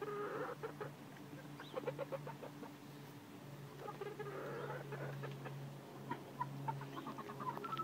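Hens clucking softly as they peck at scattered corn kernels on the ground, with many short ticks of pecking and scratching.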